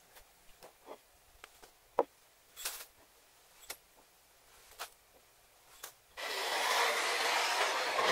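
Small glass spice dishes tapping and clinking as they are picked up, tipped into a glass mixing bowl and set back down on a wooden cutting board, with a sharp knock about two seconds in. From about six seconds in, a long, steady scraping rub of something sliding across the wooden countertop.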